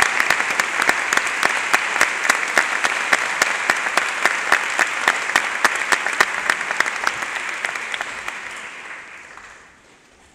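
Audience applauding, with single claps from one pair of hands standing out sharply close by. The applause holds steady for about eight seconds, then dies away.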